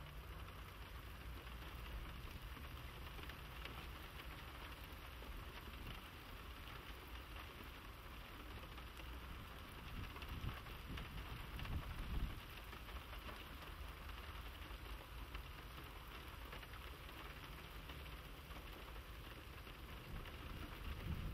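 Faint, steady hiss like light rain, over the low hum of a PD1 narrow-gauge draisine's engine fading as the draisine moves away along the track. A louder low rumble comes and goes about ten to twelve seconds in.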